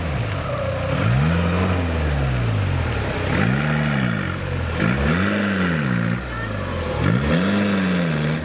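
A LuAZ-969's 1.6-litre diesel engine revving up and down over and over in repeated surges as the 4x4 works under load through deep bog mud.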